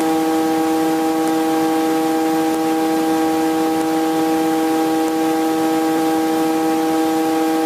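Helicopter cabin noise: a steady, unchanging whine of several pitches over a constant hiss.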